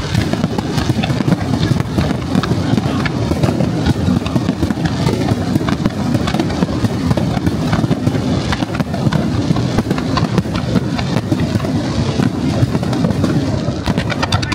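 Fireworks display firing continuously: a dense run of shell bursts and launches over a constant deep rumble, with sharp pops and crackle throughout.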